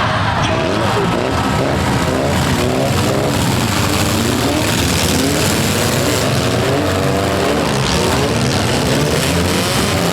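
Several four-cylinder demolition derby cars running at once, their engines revving, the pitches rising and falling and overlapping as they accelerate.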